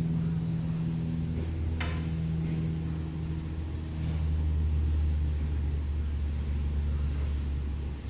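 A machine's steady low hum, with a couple of faint clicks; it swells slightly about four seconds in.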